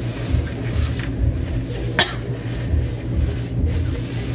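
A person coughing, sharpest about two seconds in, over a steady low hum.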